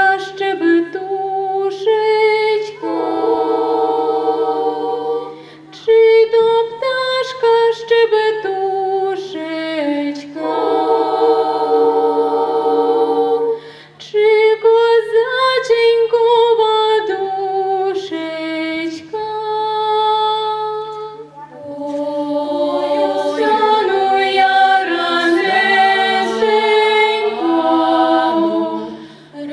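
Girls' folk ensemble singing a Ukrainian folk song a cappella in several-part harmony, in long sung phrases with short breaks between them. A faint steady low hum lies underneath.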